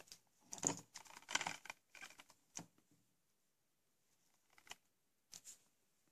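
Plastic Blu-ray case being handled: a run of rustling and clicking for about two seconds, then a few separate clicks near the end.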